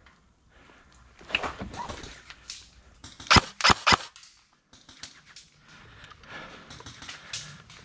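Airsoft gun firing three quick shots about a third of a second apart, a little past halfway through, with fainter scattered noise around them.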